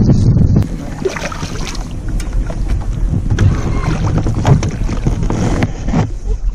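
Wind rumbling on the microphone gives way about half a second in to irregular splashing of a hooked largemouth bass thrashing at the water's surface beside the boat.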